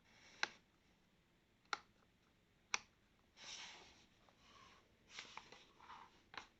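Handling noises from the unboxing of an electric fan room heater: four sharp clicks spread through the stretch, and two brief stretches of rustling, the first a little after the middle and the second near the end.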